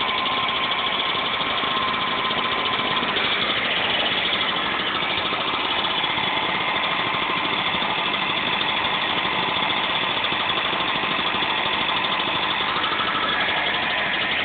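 Two-stroke engine of an old Echo backpack leaf blower running steadily just after a cold start.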